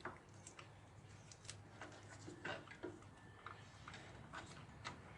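Faint, irregular clicks and small crackles of electrical tape being peeled off a bundle of wires as they are handled, over a low steady hum.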